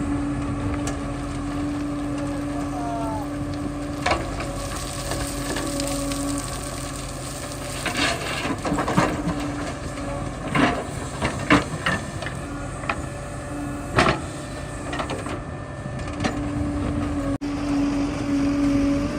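JCB 3DX backhoe loader running steadily with a constant hum. A series of sharp knocks and clanks comes in the middle stretch, from about eight to fourteen seconds in.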